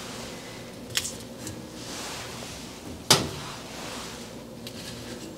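Hot baked potatoes being lifted from the oven with a big metal fork and set down on an aluminium sheet pan: a few light clicks and knocks, with one sharp clank about three seconds in.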